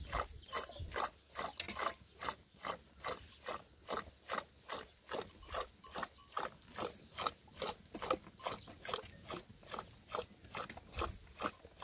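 Milk being churned into buttermilk by hand, a fast, even rhythm of strokes, roughly three a second.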